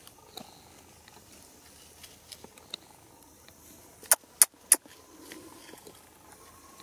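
Three sharp clicks about a third of a second apart, a little over four seconds in, with a few fainter ticks scattered before them.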